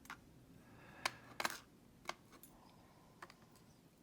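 A handful of small, sharp clicks and taps at irregular intervals, the loudest two around the first and second seconds: tiny metal lock pins and parts from a disassembled Mako 427 lock being handled and set down on a hard surface.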